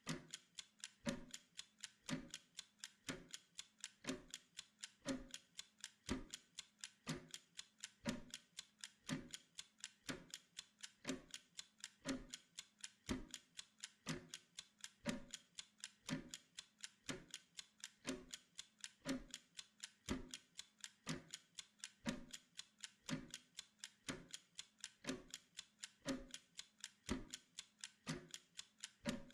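Clock-style ticking kept up evenly, a louder tick about once a second with fainter ticks in between.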